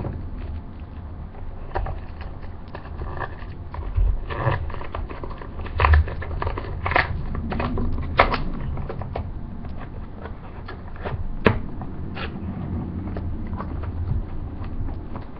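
Hands ripping packing tape and pulling at the flaps of a cardboard shipping box: an irregular run of crackles and sharp tearing rips, loudest in the middle.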